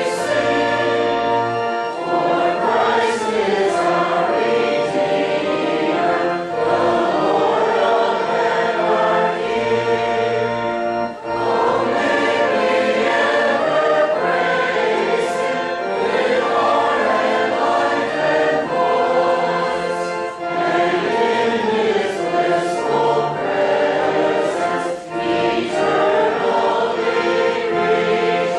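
Choir singing a hymn with accompaniment, in long sung phrases with short breaks between them.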